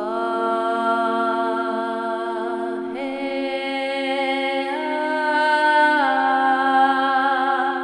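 Meditation music: a long held sung vocal tone over a steady low drone. The voice steps up in pitch about three seconds in and again near five seconds, then drops back a little about six seconds in.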